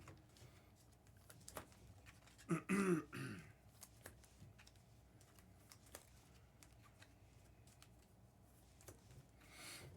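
Faint handling of trading cards, with scattered light clicks and rustles, and a person clearing their throat once about two and a half seconds in.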